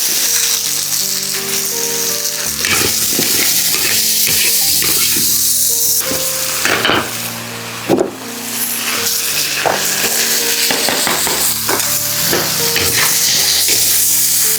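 Food sizzling as it fries in a hot pan, with frequent clicks and scrapes from stirring, over background music with held notes.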